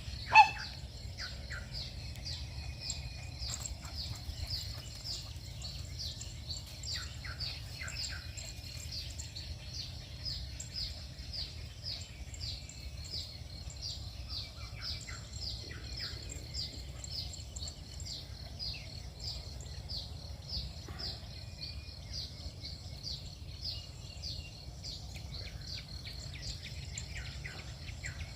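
Outdoor ambience of chirping: a high chirp repeating steadily a few times a second, with scattered lower bird calls and a low wind rumble. One short, loud, pitched sound comes just after the start.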